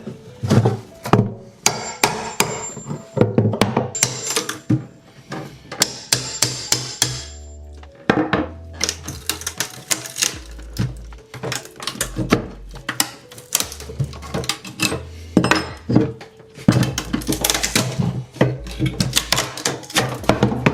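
Background music with a steady bass line, over repeated hammer blows and knocks as a nailed-down wooden stair tread is pried and knocked loose.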